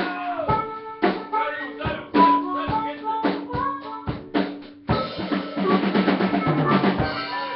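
Live rock band playing, with the drum kit's kick and snare hits to the fore over bass and guitar. The music drops out briefly about four and a half seconds in, then comes back in with a run of rapid drum hits.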